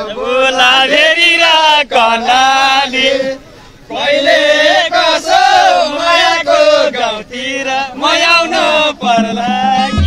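Men singing loudly together, unaccompanied, in long wavering held notes, with a brief pause about three and a half seconds in.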